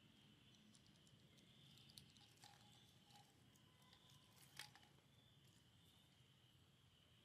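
Faint, steady drone of insects, with scattered light clicks and crackles between about two and five seconds in, the sharpest about four and a half seconds in: a young macaque handling and biting dry, thin strips on a stone floor.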